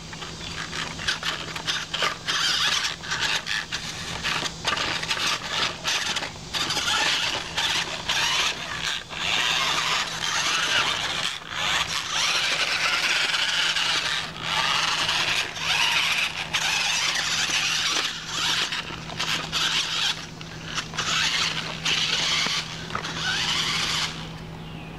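Toy RC rock crawler's electric motor and gears whirring in stop-and-start bursts as it is driven over rocks and across the ground, falling away near the end as it stops. A steady low hum runs underneath.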